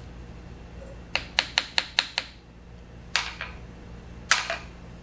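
Small hammer tapping on the steel parts of a Monarch 10EE lathe spindle assembly, knocking the high spot into line against a dial indicator: a quick run of six light metallic taps about a second in, then two single harder taps, the last one the loudest.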